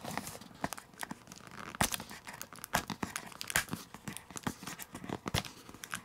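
Fingernails picking and scratching at a clear sticker seal on a cardboard box, making irregular crinkling clicks and small scrapes as they try to lift its edge.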